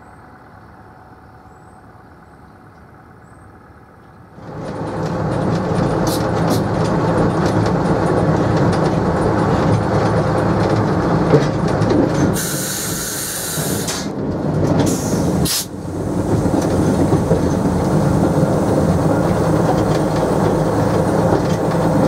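Faint bird chirps, then a loud ride on board behind a small NZR Tr-class diesel shunting locomotive. The diesel engine runs steadily, with wheel clicks over rail joints and points. A brief hiss comes a little after the middle.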